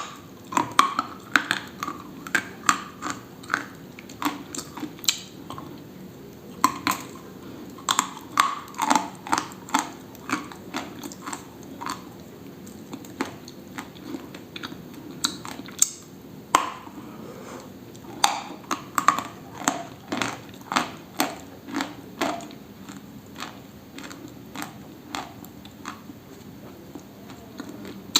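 Dry, brittle material crunching close to the microphone: sharp, irregular crunches in quick runs with short pauses between.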